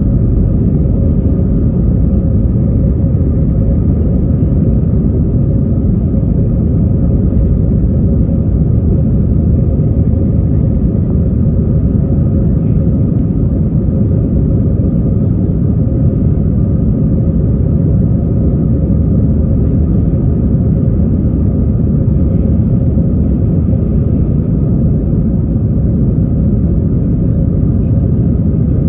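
Cabin noise of an Airbus A320-232 climbing out after takeoff: a loud, steady rumble from its IAE V2500 engines and the rushing air, with a faint steady hum on top.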